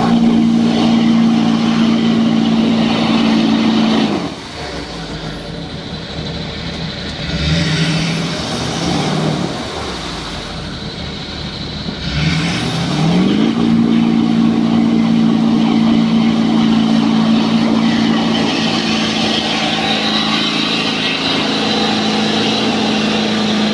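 Hummer H2's V8 engine held at high revs as its wheels spin and churn through deep mud and water, with splashing throughout. The revs drop about four seconds in, blip briefly twice, then climb again about twelve seconds in and stay high.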